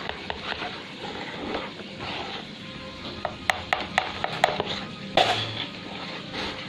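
Wire balloon whisk stirring chiffon cake batter in a large plastic bowl, with a quick run of sharp clicks of the whisk against the bowl about three and a half seconds in and a short, loud rustle a second later.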